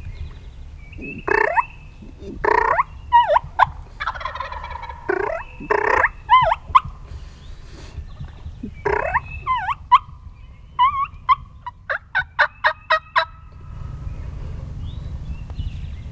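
Wild turkey gobbler gobbling loudly several times in a row. Near the end comes a quick string of about seven short turkey yelps.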